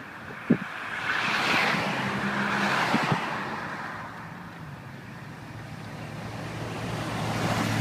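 A vehicle passing close by, its tyre and engine noise swelling for a couple of seconds and fading, with a sharp click about half a second in and another vehicle approaching near the end.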